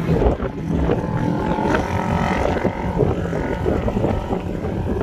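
Off-road vehicle engines running, with pitch shifting as they rev, and wind buffeting the microphone.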